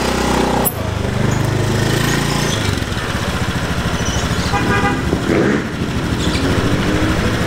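Small motor scooter engine idling steadily, with one short horn beep about halfway through.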